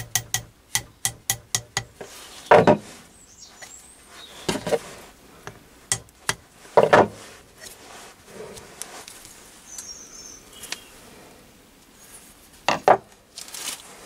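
A small brass-faced mallet tapping lightly and quickly on a steel barrel weight's brass insert, about four taps a second, stopping about two seconds in. Then a few separate, louder knocks and clunks as the weight and mallet are handled and set down on the bench.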